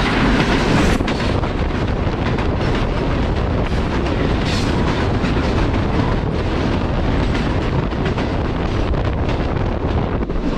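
Passenger train running at speed, heard from inside a coach with a window open: a steady rumble of wheels on rail mixed with rushing wind.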